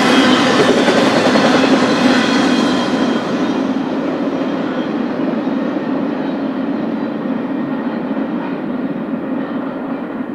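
BNSF intermodal freight train's cars rolling past on the rails, the steady rumble slowly fading as the train moves away.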